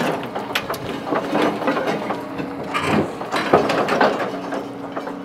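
The rusted wheels and running gear of a Ruston 48 locomotive creaking and clicking irregularly as it is dragged slowly over the ground after decades standing still, with a steady engine drone underneath.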